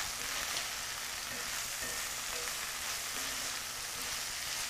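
Strips of pork belly, dried tofu and celery sizzling steadily in a hot skillet as a wooden spatula stirs them in a stir-fry.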